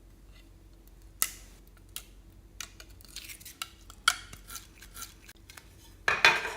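Irregular clicks, taps and clinks of small containers and utensils being handled while things are added to slime for mixing, with a louder clatter near the end.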